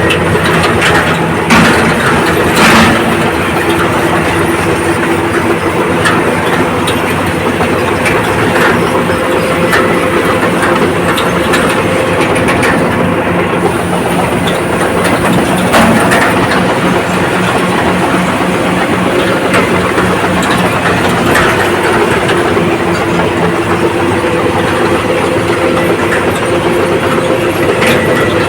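Komatsu D85ESS crawler bulldozer working, its diesel engine running steadily while its steel tracks clatter continuously. A few louder metallic knocks come in the first few seconds and again about halfway through.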